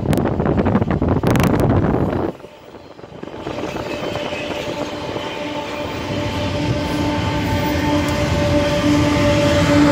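Wind buffeting the microphone, cutting off suddenly about two seconds in. Then a train approaches, growing steadily louder, with a steady humming tone rising out of it.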